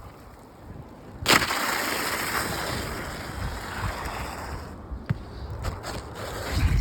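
An old asphalt shingle being pulled out from under the course above: a sharp crack about a second in, then a scraping rasp of about three and a half seconds as it slides free. Low wind rumble on the microphone near the end.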